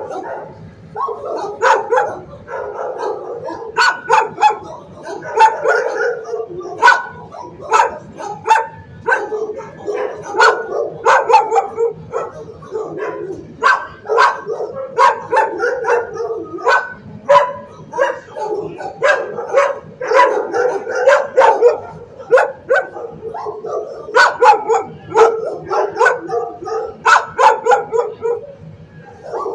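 Dogs barking without pause in shelter kennels, sharp barks overlapping one another.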